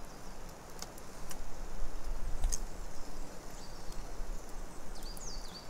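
Woodland ambience with scattered light clicks of forks on metal mess tins and a swell of rustling about two seconds in. A small bird gives a few short, high chirps near the end.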